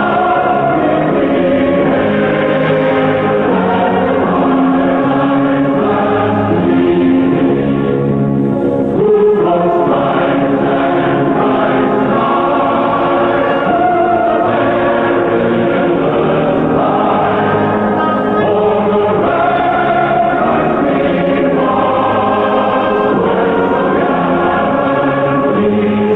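A choir singing slow, sustained chords with held notes that change every second or two. The sound is muffled, with no treble.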